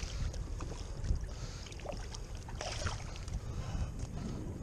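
Water splashing beside a kayak as a hooked striped bass thrashes at the surface while being handled, in short splashes with the loudest about two and three seconds in. Low wind rumble on the microphone underneath.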